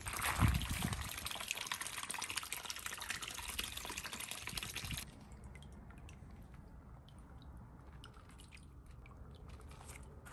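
A rushing, splashing hiss of water full of crackles, which cuts off abruptly about five seconds in. Then come quieter scattered taps and drips as a dog paws at a ball in a shallow plastic paddling pool.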